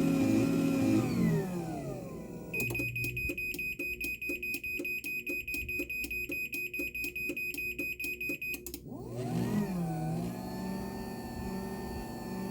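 2023 garage door opener running its automatic force-setting cycle: the motor runs, then winds down with falling pitch about two seconds in. A rapid high beeping follows, about three beeps a second for some six seconds, and near the end the motor starts again with rising pitch and runs steadily.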